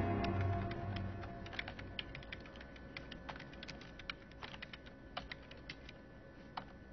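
Typing on a computer keyboard: irregular keystrokes, a few a second, faint. A music score fades out during the first second or two.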